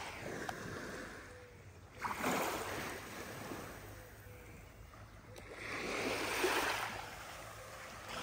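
Small sea waves washing up onto a sandy beach and falling back, three gentle washes a couple of seconds apart.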